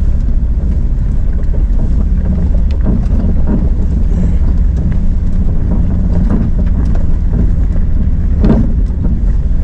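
Jeep driving along a rough dirt track: a steady low rumble of engine and tyres, with scattered knocks and rattles.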